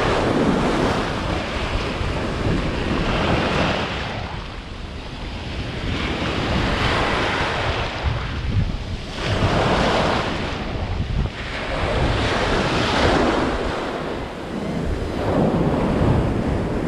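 Small surf waves washing up the sand, a hiss of foam that swells and fades about every three seconds, with wind buffeting the microphone underneath.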